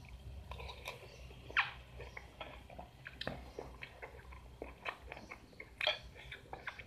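A person chewing a mouthful of crunchy young mango rujak close to the microphone: irregular wet crunches and mouth clicks, with two louder crunches about a second and a half in and near the end.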